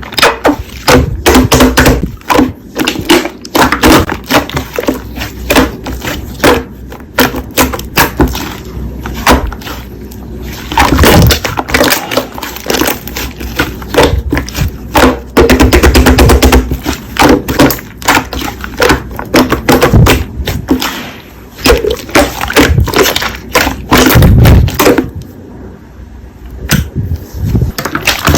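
Slime being squeezed and worked by hand, giving dense sticky clicks, pops and crackles that ease off briefly near the end.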